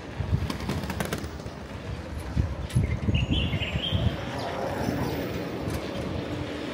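Street ambience heard from a moving bicycle: irregular low rumbling throughout, a few sharp clicks about a second in, and a brief high sound about three seconds in.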